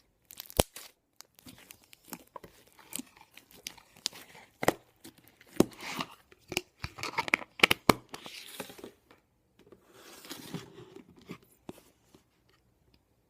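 Homemade slime being squished and stretched by hand, giving irregular sticky pops, clicks and crackles that stop about twelve seconds in.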